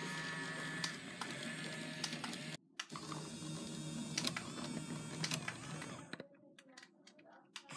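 Small electric drive motor and plastic gearbox of a toy radio-controlled forklift whirring steadily. The whir drops out briefly about two and a half seconds in, and after about six seconds it stops, leaving a few faint clicks.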